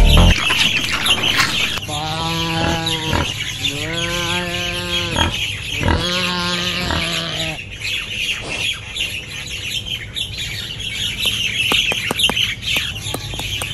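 Birds chirping steadily, with three drawn-out farm-animal calls, each about a second long, coming one after another between about two and seven and a half seconds in. Short clucking clicks follow near the end.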